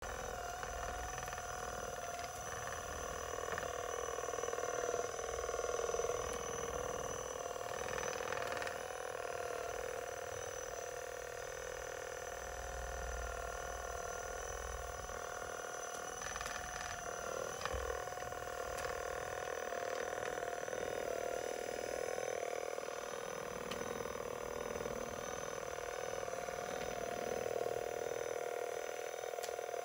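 Handheld percussion massage gun running against a cat's fur, its motor giving a steady hum that wobbles slightly in pitch now and then.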